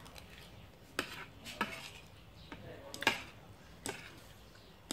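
Metal spoon and fork clinking and scraping against a ceramic plate during eating, with four or five sharp clinks spread a second or so apart.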